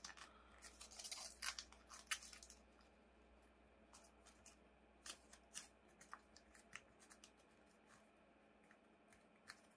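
Faint crackling of a sheet of origami paper being folded and creased by hand, dense for the first couple of seconds, then scattered single ticks.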